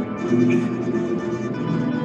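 A plucked-string orchestra of bandurrias, laúdes and guitars playing a waltz, with held notes sounding over the plucked accompaniment.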